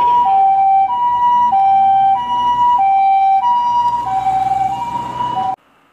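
Japanese ambulance's two-tone siren, a high and a low note taking turns about every two-thirds of a second, with faint traffic rumble beneath; it cuts off suddenly near the end.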